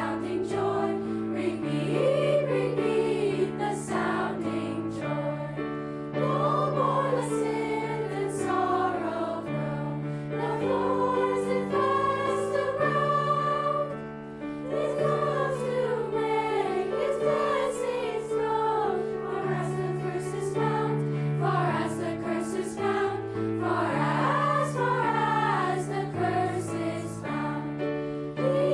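A school choir singing a Christmas piece, several voice parts moving over sustained low notes, with a brief drop in level about halfway through.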